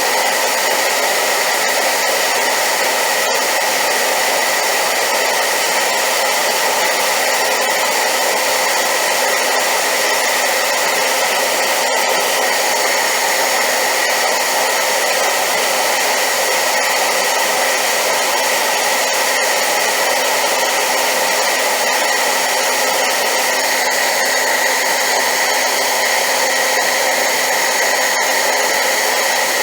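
Hair dryer running steadily on high power: a loud, unchanging rush of air with a faint steady motor whine.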